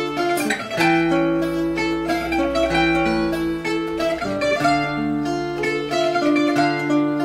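Instrumental duet of a Portuguese guitar playing a plucked melody over a nylon-string classical guitar accompaniment with a bass line.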